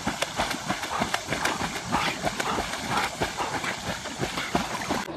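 Dogs swimming and paddling through a pond, their strokes splashing the water in a quick, irregular patter.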